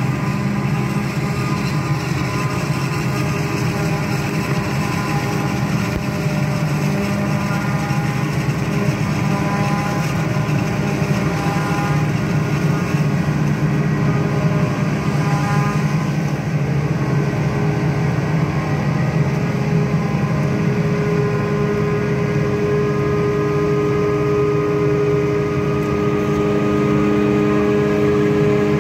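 Claas Jaguar self-propelled forage harvester chopping maize. Its engine and chopping gear run as a loud, steady drone with several held tones, growing a little louder near the end as the machine comes closer.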